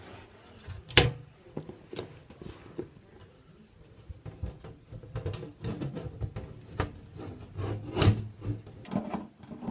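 Desktop PC case side panel being fitted back on: a sharp knock about a second in, another a second later, then scraping and rattling as the panel is slid into place, and a second loud knock near the end.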